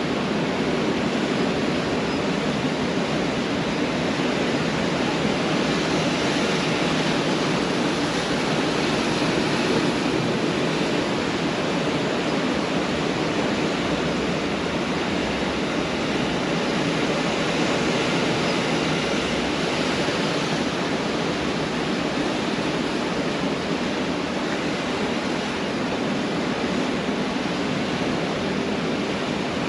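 Pacific Ocean surf breaking on a beach: a continuous wash of waves that swells slightly now and then without ever letting up.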